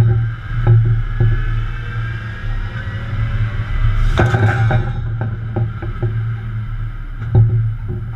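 A service rig's engine runs with a steady low drone, while steel tubing and the elevators on the hoisting blocks knock and clank against each other. The loudest clank comes about four seconds in, as the elevators close on the pipe.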